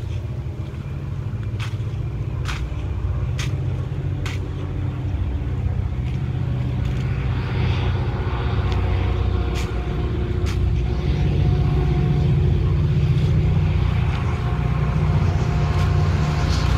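Sharp slaps and clicks from a silent drill platoon's rifle and heel movements, four in the first few seconds and two more about ten seconds in. Underneath, a steady low engine rumble grows louder.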